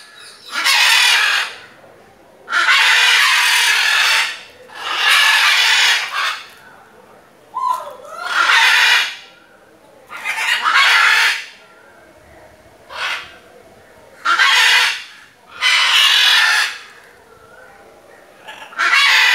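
Macaws giving loud, harsh, drawn-out squawks, one after another with pauses of about a second between them; most calls last around a second, and one is a short squawk.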